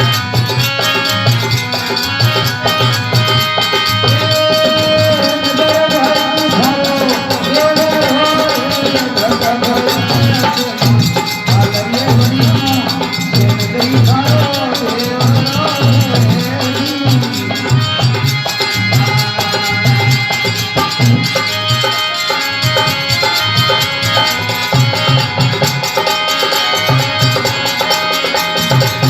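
Rajasthani folk bhajan music: a quick, steady drum beat with rattling percussion under a pitched melody line, playing without a break.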